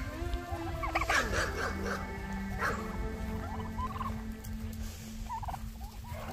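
Domestic turkeys gobbling, with a rattling burst about a second in and another shortly before three seconds.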